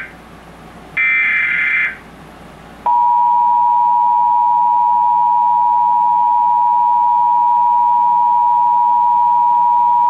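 Emergency Alert System Required Monthly Test: a roughly one-second screech of SAME digital header data about a second in, then after a short pause the steady two-tone EAS attention signal starts about three seconds in and holds loud.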